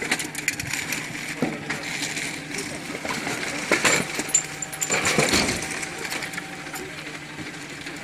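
Scattered clinks, knocks and clatter of junk and belongings being picked up, shovelled and thrown toward a garbage truck, over a steady hum.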